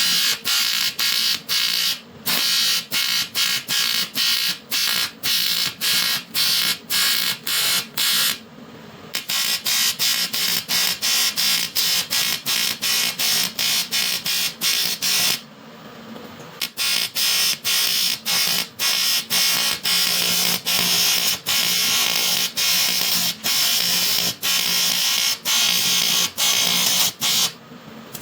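Electric welding arc on aluminium, buzzing and crackling in short pulses about three times a second, broken by a few longer pauses.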